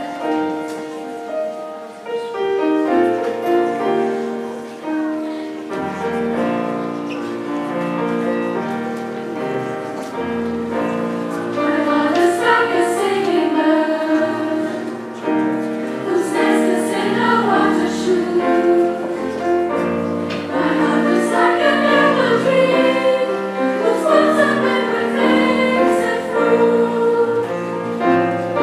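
School choir singing in several parts, with long held notes; the singing grows louder and fuller about twelve seconds in.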